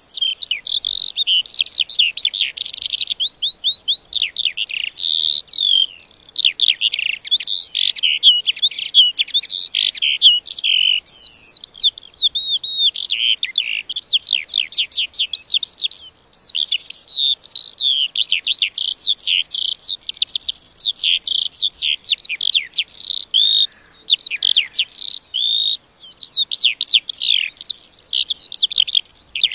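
A lark singing one long, unbroken stream of rapid, varied twittering and trilling notes, without pauses.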